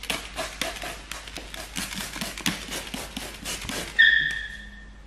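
A hand trigger spray bottle of tack solution pumped rapidly, a quick run of spritzing clicks at about five or six a second. About four seconds in, a short high squeak rings out and fades.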